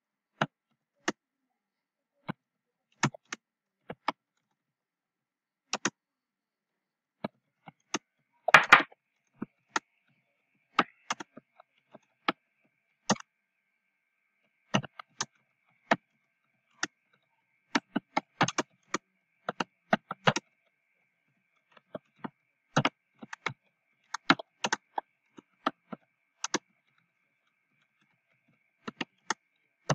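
Computer keyboard keys clicking as a message is typed, in irregular single taps and short runs with pauses between. There is a louder clatter of keys about eight and a half seconds in, and a faint steady high whine from about ten seconds in.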